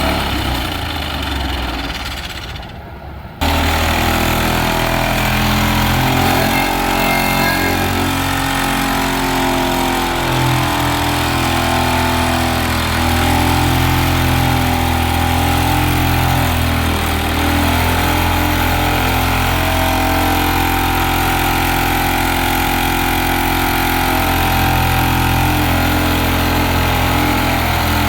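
Excavator-mounted side-grip hydraulic vibratory pile driver running with the excavator's engine: a steady mechanical drone made of several layered tones. It fades over the first few seconds, then comes back suddenly at full strength about three seconds in.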